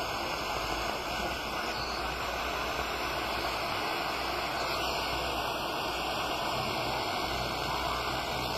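FM radio receiver giving steady hiss and static while tuned between stations, with no clear programme coming through.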